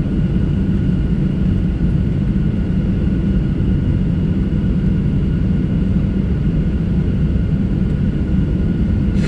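Cabin noise inside a Boeing 737-700 heard at a window seat near the wing: its CFM56-7B turbofan engines idling on the ground give a steady low rumble with a faint steady whine above it. A short click comes right at the end.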